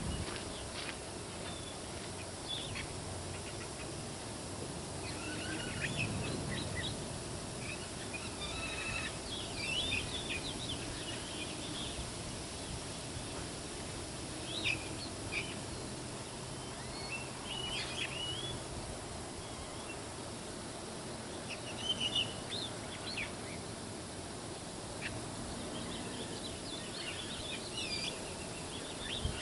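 Birds chirping here and there in short calls over a steady outdoor background hiss.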